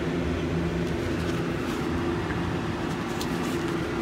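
Steady low machine hum with several held tones running throughout, joined by a few light clicks about three seconds in.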